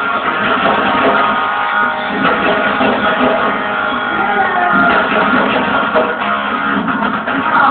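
Background music with strummed guitar.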